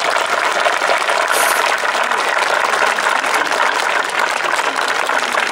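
Audience applauding: a dense, steady round of clapping from a crowd of spectators.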